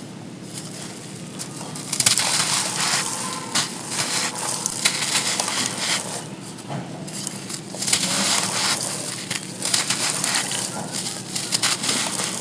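Dry sand cones being crushed and crumbling: repeated crisp, gritty crunches in clusters, beginning about two seconds in.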